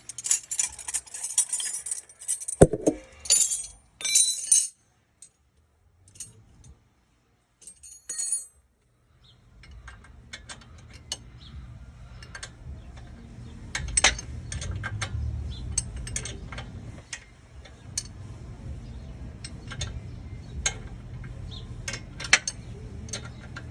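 Loose metal hand tools and sockets clinking and jingling, with one sharp metal knock about three seconds in. After a pause, a low steady hum with scattered light ticks of tool work.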